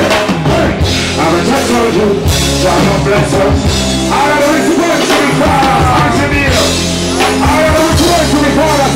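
Loud reggae band music with a voice singing over it, bass and drums steady underneath.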